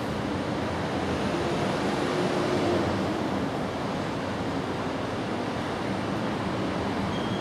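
Steady rushing background noise with no distinct events, and a faint hum between about one and three seconds in.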